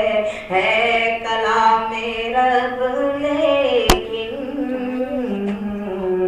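A man singing a naat unaccompanied, drawing out long, gliding held notes between lines. There is a sharp click about four seconds in.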